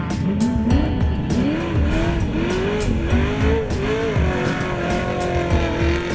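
Off-road race vehicle's engine revving, its pitch rising and dropping again and again, over background music with a steady beat.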